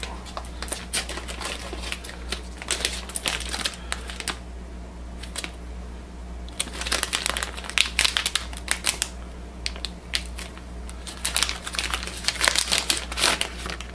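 Plastic packaging of an inkjet cartridge crinkling and crackling as it is handled and opened. The crackling comes in spells, with a quieter pause about four seconds in, over a faint steady low hum.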